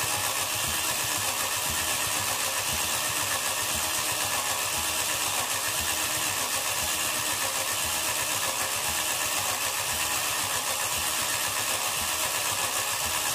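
Chevrolet 305 small-block V8 being cranked over on its starter motor without firing, with an even chugging rhythm from the compression strokes, to build and check oil pressure.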